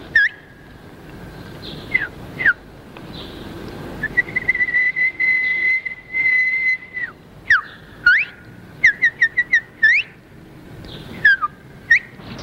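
A person whistling bird-call imitations: short chirps and falling slides, one long held note, then a quick run of rising chirps about nine seconds in.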